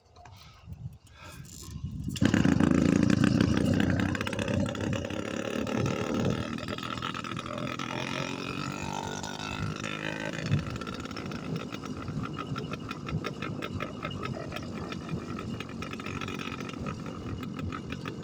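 Warmed-up two-stroke engine of a motorized bicycle, running with its exhaust baffle removed. It is faint for about the first two seconds, then comes in loud and keeps running steadily with a rapid firing rattle.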